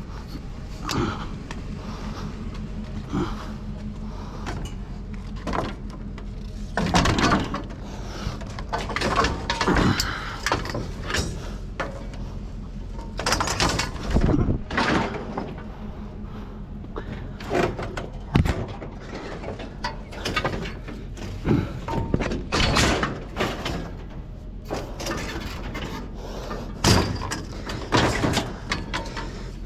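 Irregular knocks, bangs and clatter, sharp strikes every second or two, over a steady low hum.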